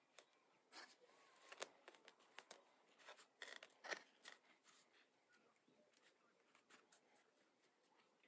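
Faint scattered clicks and rustles, with a denser, louder cluster about three to four seconds in.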